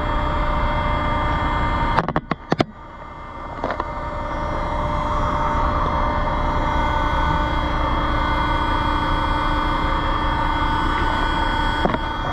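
Heavy machinery running steadily with a constant hum and low rumble while an old chain-and-sling trailer dump tips a trailer loaded with mulch; a few sharp clicks about two seconds in.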